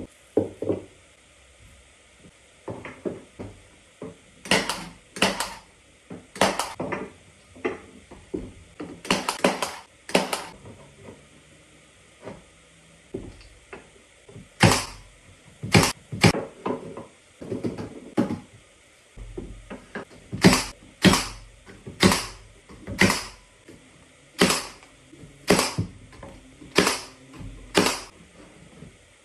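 Cordless nail gun firing nails into wooden trim boards: a long series of sharp shots, some in quick pairs, with pauses between, coming about one every half second to second through the second half.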